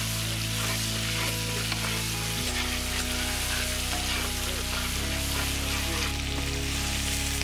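Whole spiced chickens sizzling in hot oil in a large iron kadai as a metal spatula stirs and turns them. Background music plays low held chords, changing twice.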